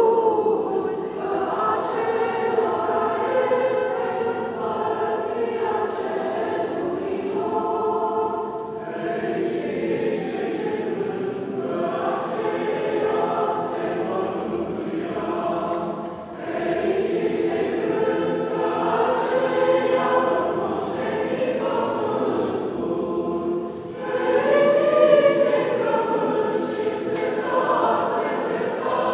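Church choir singing chant in long held phrases, with brief pauses about 16 and 24 seconds in.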